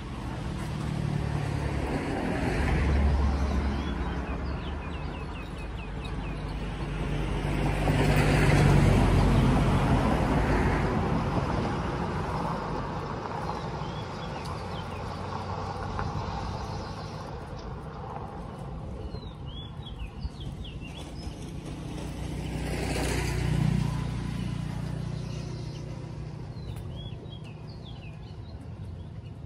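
Road traffic passing, a low rumble that swells and fades about three times, with small birds chirping now and then.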